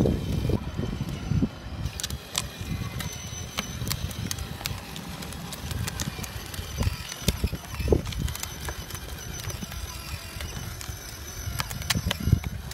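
Plastic wheels of a toddler's ride-on toy motorbike rolling over rough asphalt, a low rumble with scattered clicks and knocks, along with footsteps walking beside it.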